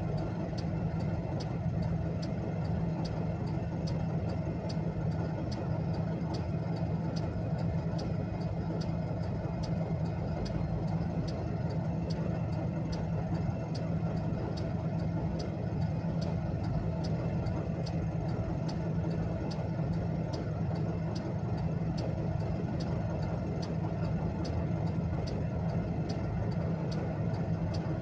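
A car's hazard-light flasher ticking in an even, regular rhythm, heard inside the cabin, over the steady low hum of the engine idling.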